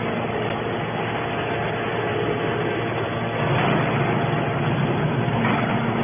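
Hydraulic scrap metal baler running: steady motor and hydraulic pump noise, swelling slightly about three and a half seconds in.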